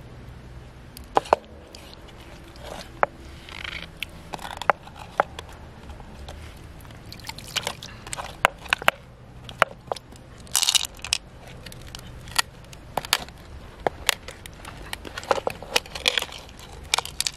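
Pearls clicking against one another and against the mother-of-pearl shell of a large freshwater pearl mussel as they are picked out of its flesh and set down. The clicks come one at a time at irregular moments, mixed with a few short scrapes.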